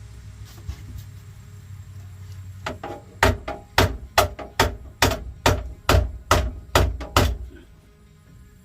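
A quick run of about a dozen sharp knocks, a little over two a second, like something being struck repeatedly with a hammer, stopping after about seven seconds.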